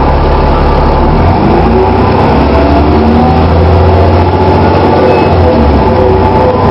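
Dennis Trident double-decker bus engine running under load as the bus pulls away, its pitch stepping up about a second in and climbing, then dipping briefly near the end.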